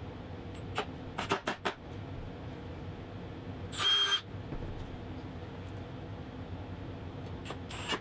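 Cordless drill driver run briefly, driving screws into a steel drawer slide: a half-second whir about four seconds in and a shorter one near the end, after a few sharp clicks in the first two seconds, over a steady low hum.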